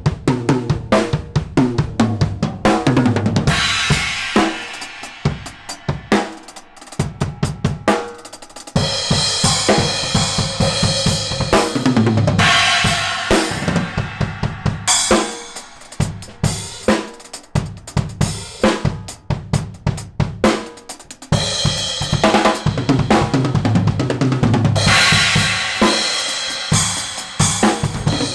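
Acoustic drum kit played fast: snare and tom strokes over the kick drum, with stretches where the Bosphorus crash cymbals ring out, about three seconds in, from about nine to fifteen seconds, and again from about twenty-two seconds.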